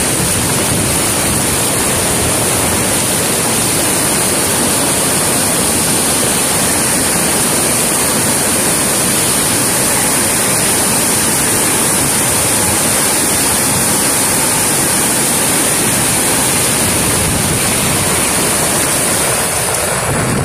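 Flooded mountain stream in spate after heavy rain, muddy water rushing down a hillside channel and across the road: a loud, steady wash of water noise.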